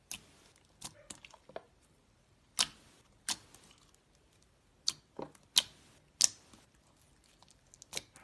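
Thick, glossy slime being pressed and poked, giving about a dozen sharp clicks and pops at uneven intervals, two of them louder than the rest.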